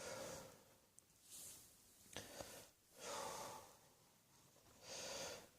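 A person breathing audibly, with several quiet, hissy breaths in and out at uneven intervals.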